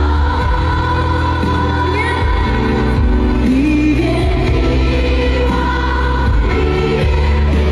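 A stadium concert crowd singing a slow Mandarin ballad together, thousands of voices in unison over the band's accompaniment and a heavy bass.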